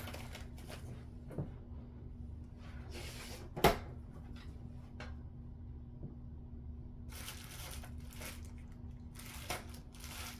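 Paper and craft materials handled and shuffled on a tabletop, in several short rustling bursts, with one sharp knock about three and a half seconds in. A faint steady hum runs underneath.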